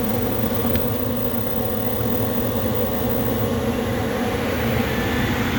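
Furnace running: a steady hum of its motor and rushing air.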